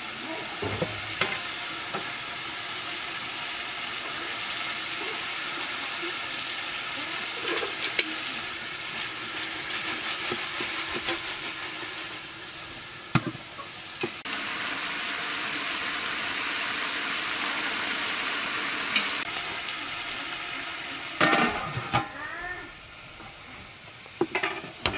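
Fish curry sizzling in a large aluminium cooking pot as it is stirred, a steady hiss that grows louder for a few seconds in the middle, with sharp metallic clanks of the utensil against the pot. Near the end the metal lid clatters as it is set back on the pot.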